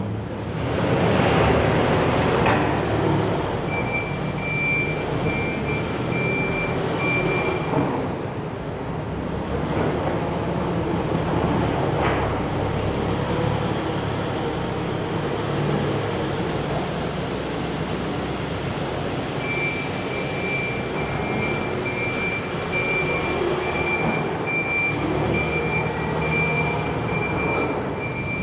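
Farm machinery running steadily, with a thin high whine that comes in for a few seconds, drops out, and returns from about two-thirds of the way through. A couple of sharp knocks stand out, one a couple of seconds in and one near the middle.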